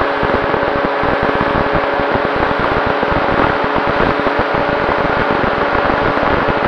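FPV model aircraft's motor and propeller running at steady speed, a constant whine over a rush of air, with wind buffeting the onboard camera's microphone in irregular low rumbles.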